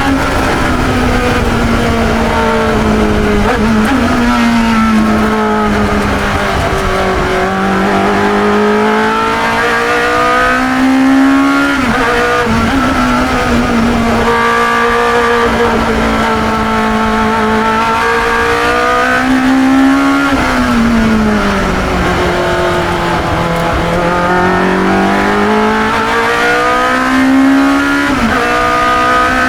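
Onboard sound of a 1972 Chevron B21 two-litre sports racer's engine at racing speed. The revs climb steadily and drop sharply about four times as it changes gear, with slower falls in between as it lifts or brakes for corners.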